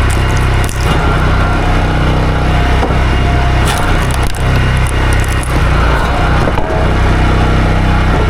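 Small gasoline engine running steadily at high speed under load, with a few brief dips in level.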